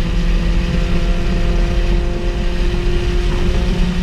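Honda Fit GD3's 1.5-litre four-cylinder engine accelerating hard in fourth gear, its pitch rising slowly as revs climb past 5,000 rpm, heard from inside the cabin over road and wind noise. The engine runs catless 4-2-1 race headers and an Invidia N1 exhaust.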